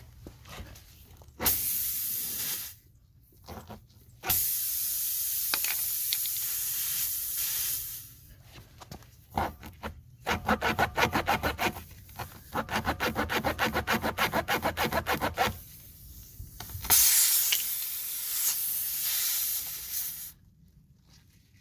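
Air hissing out of a punctured car tyre as a tyre-plug reamer is pushed into and pulled out of the hole, in long hisses. In the middle the reamer is worked rapidly in and out, giving a rasping hiss that pulses about five or six times a second as it cleans out the hole for the plug.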